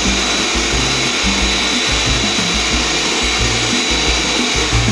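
Phoenix Zephir SP high-velocity pet dryer blowing, a steady rush of air with a thin high whine from its motor, as it blows loose undercoat out of a dog's coat. Music with a bass line plays underneath.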